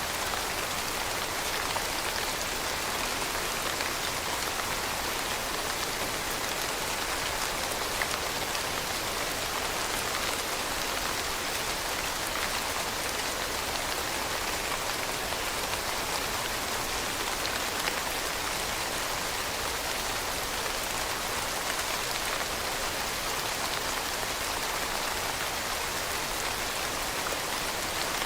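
Steady rainfall, an even hiss of many drops with faint scattered patters.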